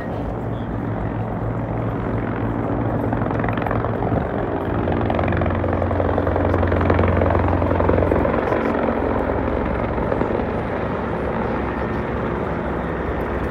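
Helicopter flying, its rotor beating steadily; it grows louder toward the middle, then eases off slightly.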